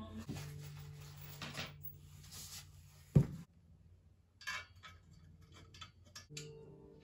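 Metal furniture frame parts knocking and clinking during flat-pack assembly: one heavy knock about three seconds in, then a run of light metallic clicks and taps as the rods, screws and tool are handled.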